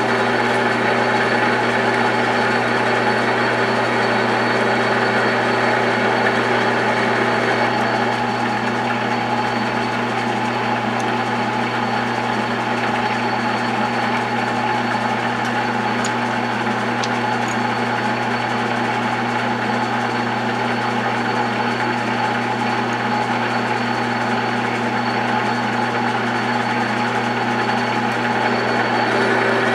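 South Bend lathe running steadily under power feed during a single-point threading pass with a carbide threading insert, its motor and gear train giving an even hum with a faint high whine. It eases slightly early on and picks up again near the end.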